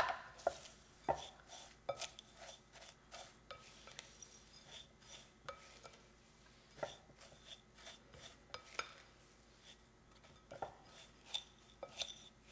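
Silicone spatula stirring shredded cheese into buttered panko crumbs in a glass mixing bowl: faint, irregular scraping and light taps against the glass, with a sharper knock at the very start.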